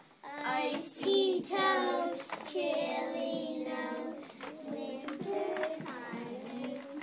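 A small group of young children singing a song together, with some long held notes.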